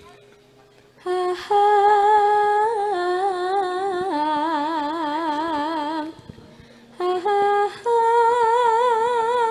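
A Javanese sinden (female gamelan vocalist) sings a slow solo line of long-held notes with a wide, wavering vibrato, stepping down in pitch. She breaks off about six seconds in and starts again a second later.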